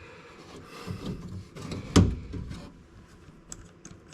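Light clicks and handling noises of hand work on the car, with one sharp knock about two seconds in and a few small ticks near the end.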